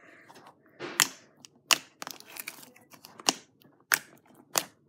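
Fingers pressing and poking thick homemade slime in a clear plastic jar, giving a series of sharp, irregular sticky clicks and pops, about five loud ones.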